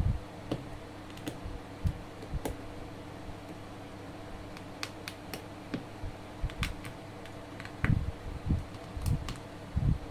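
Small, irregular clicks and taps of plastic and metal parts of a Poco X3 Pro smartphone being pressed and snapped back into place by fingers during reassembly, over a faint steady hum.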